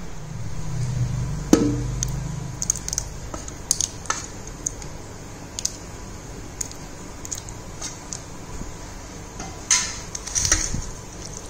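Steel ladle clinking and scraping against stainless steel pans as thick tamarind gravy is scooped onto cooked rice: scattered light clicks, a sharper knock about a second and a half in, and a cluster of clinks near the end. A low rumble at the start.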